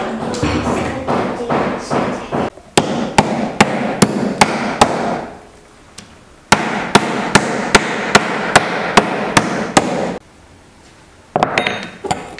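Metal meat tenderizer mallet pounding slices of raw meat flat on a wooden cutting board: runs of sharp, even strikes about three a second, with a pause in the middle and a short burst near the end.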